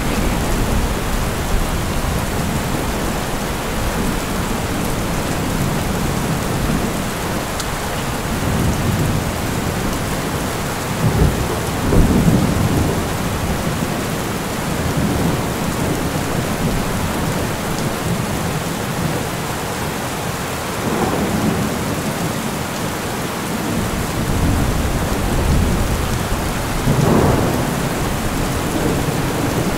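Thunderstorm: steady heavy rain with low rolls of thunder, the loudest about twelve seconds in and two more in the second half.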